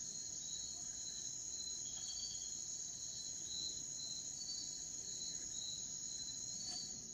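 Steady high-pitched chirring of crickets, with a faint click near the end.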